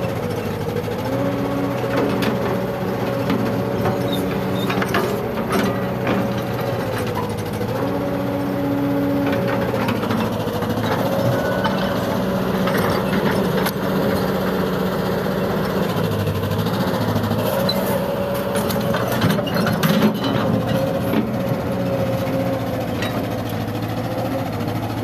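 A Kobelco hydraulic excavator's diesel engine running under working load, with a steady whine in its note that dips briefly every few seconds. Scattered knocks come from the bucket digging into rocky soil.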